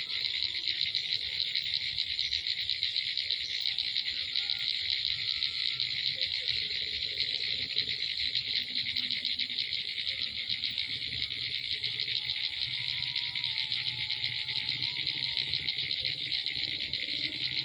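Dense, steady chorus of insects: a continuous high, rapidly pulsing chirring with no break.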